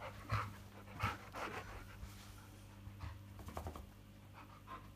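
Alaskan malamute panting and huffing in short, irregular breaths during rough play.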